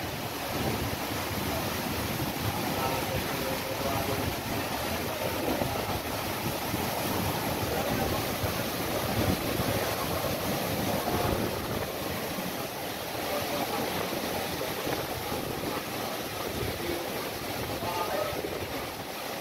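Storm wind blowing hard across the microphone, with heavy rain and harbour waves washing against the quay wall. The rushing noise runs steadily and swells and eases a little.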